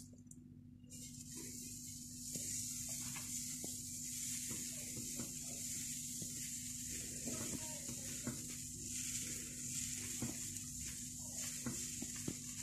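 Thin kunafa batter piped from a plastic bag onto a hot nonstick frying pan, sizzling with a steady hiss as the strands hit the metal, starting about a second in. A steady low hum runs underneath.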